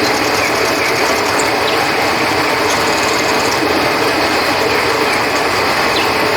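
A river flowing in a steady rush, with crickets chirping above it in rapid, high-pitched pulsed trains.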